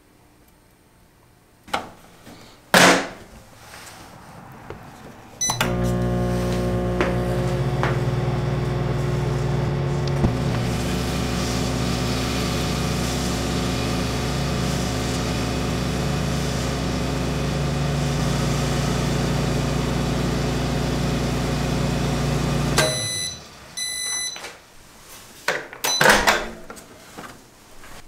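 Countertop microwave oven heating a bunch of grapes. The door shuts with a knock about 3 seconds in, then the oven runs with a steady loud hum for about 17 seconds. It stops with a few short beeps and the door clunks open near the end.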